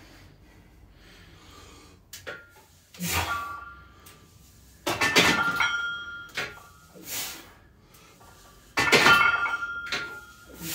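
A barbell loaded with 140 kg of plates being lifted and set down for reps: a few light knocks, then heavy metal clanks about every two seconds, the loudest ones ringing on like struck cast iron.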